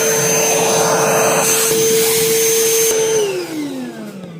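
Milwaukee M18 cordless wet/dry vacuum running with a steady motor whine and rushing air. About three seconds in it is switched off, and the whine falls away as the motor spins down.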